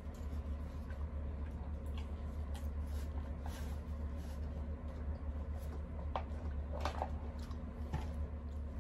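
Close-miked eating sounds: chewing, lip smacks and small wet clicks from people eating with their hands, over a steady low hum.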